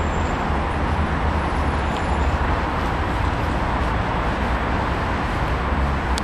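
Steady city background noise: a continuous low rumble with an even hiss over it, without pause or change.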